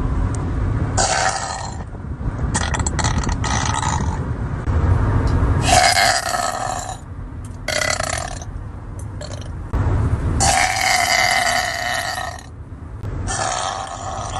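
A woman burping loudly, about six separate burps with short gaps between them; the longest runs nearly two seconds about two-thirds of the way in.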